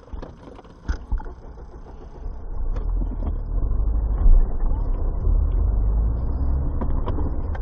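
Low, steady rumble of a Mercedes-Benz car driving, heard from inside its cabin. It grows louder about two and a half seconds in.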